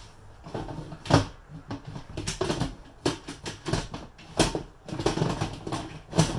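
Instant Pot lid being set on the pot and turned to lock: a series of clatters and knocks, the loudest about a second in and again about four and a half seconds in.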